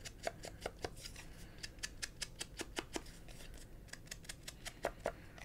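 Round foam ink blending tool being dabbed over a small paper label and an ink pad to distress its edges: a quiet run of short, irregular taps and clicks, a few a second.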